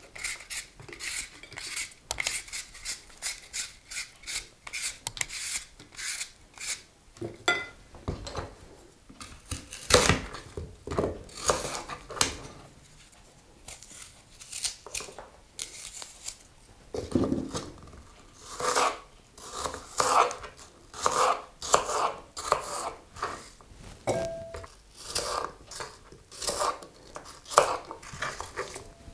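A knife and peeler working an apple: short scraping strokes as the apple is peeled and cored, then, in the second half, a run of knife taps on a plastic cutting board, about one or two a second, as it is diced into small cubes.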